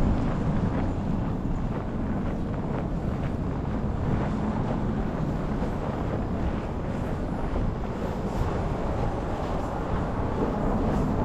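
Steady street noise in a snowstorm: a low traffic rumble with wind buffeting the microphone.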